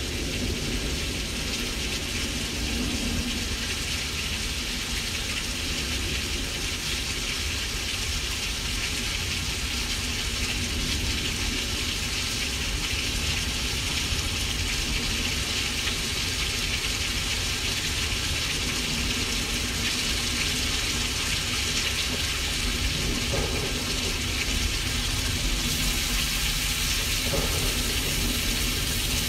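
Simulated rain: a steady, even hiss over a low rumble.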